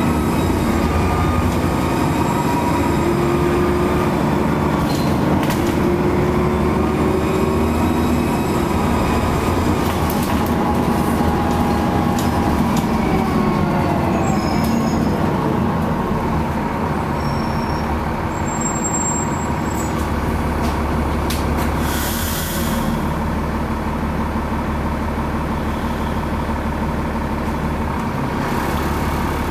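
Interior sound of a Trident double-decker bus under way: steady engine and road noise, with the engine note rising and falling as the bus pulls and eases off. A faint high turbocharger whistle sits over it. Two short hisses of air come about two-thirds of the way through and near the end.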